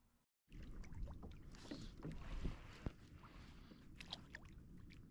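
Water lapping and sloshing against a fishing kayak's hull at sea, with a few light knocks.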